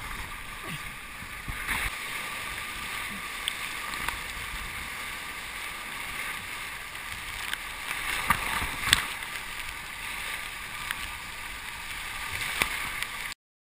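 Stormy sea surf rushing and sloshing around a camera at water level, with a few sharp splashes about eight and nine seconds in and again near the end. The sound cuts off suddenly shortly before the end.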